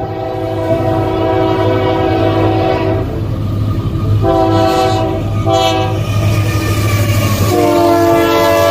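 Union Pacific GE C45AH-T4 (ET44AH) diesel locomotive sounding its multi-chime air horn while approaching. A long blast ends about three seconds in, followed by two short blasts. A final long blast begins near the end at a lower pitch as the locomotive draws level and passes. A steady low diesel rumble runs underneath.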